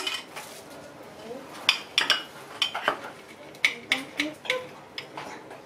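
Cheese grated on a small metal hand grater held against a plate: an irregular run of sharp clinks as the metal knocks and scrapes on the plate.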